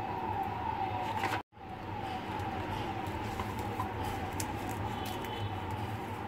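A siren-like falling tone that repeats every half second or so over a steady low hum. The sound cuts out completely for a moment about one and a half seconds in, then resumes.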